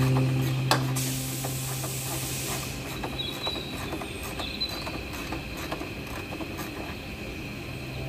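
Hand tools clicking and rattling on metal parts: irregular light ticks throughout as fasteners are worked loose, a sharper click just under a second in, and a short hiss lasting about a second and a half.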